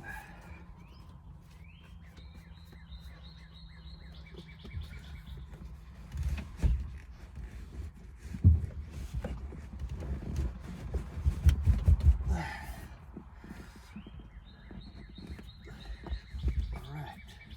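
Rubbing, handling noise and dull thumps as a leather seat-cover sleeve is forced down over a truck headrest, loudest in the middle. A bird chirps repeatedly near the start and again near the end.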